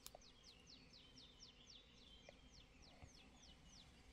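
Faint birdsong: a rapid series of short falling chirps, about five a second, over quiet outdoor ambience, with a single sharp click at the very start.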